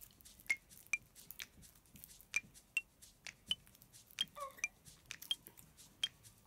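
Light background music of sparse plucked, bell-like notes, about two a second, each at a different pitch. A brief faint voice sound comes a little after four seconds in.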